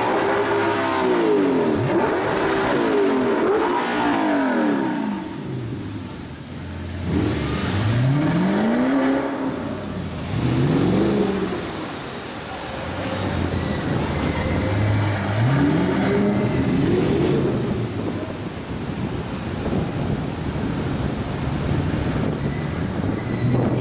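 Audi R8 sports car engines revving hard, the pitch climbing and dropping in repeated rev blips. Several revs overlap at first, then single rises come about seven, ten and fifteen seconds in, with steady street traffic noise between them.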